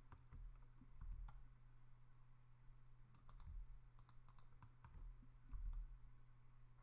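Faint computer mouse button clicks: a few single clicks, then a quick run of them in the middle, over a steady low electrical hum.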